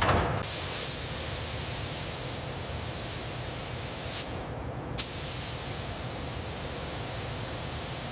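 Steady spraying hiss, as from a spray tool working on a car body. The high hiss cuts out for under a second about four seconds in and comes back with a sharp click.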